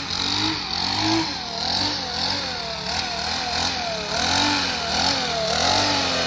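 Radio-controlled boat's electric motor whining as it runs on the water. Its pitch rises and falls over and over, about twice a second.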